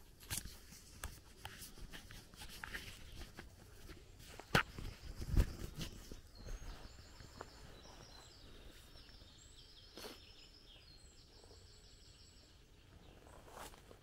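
Footsteps crunching through forest leaf litter and twigs, with crackles and a heavier low thump about five seconds in. Then a songbird sings a long run of short, quickly repeated high notes for several seconds.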